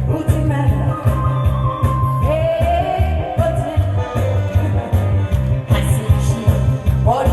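A singer performing a song through a PA over an amplified backing track with a steady, heavy beat.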